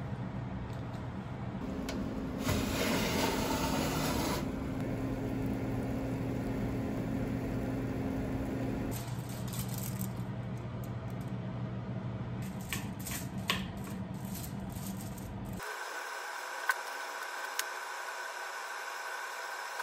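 Kitchen cooking sounds: utensils and cookware rattling and scraping over a steady low hum, with a few sharp clicks, cut together from several short takes.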